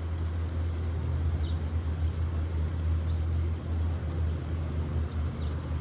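Steady low rumble with a hiss above it, the background of an outdoor recording, with a few faint short high chirps.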